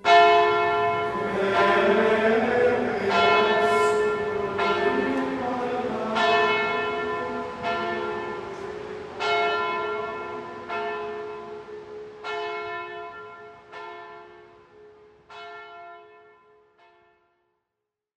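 Church bell tolling, one strike about every second and a half, each strike ringing on. The strikes fade out near the end.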